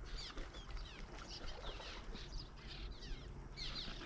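Birds calling: many short, high chirps that slide downward in pitch, repeating quickly one after another over a low outdoor hum.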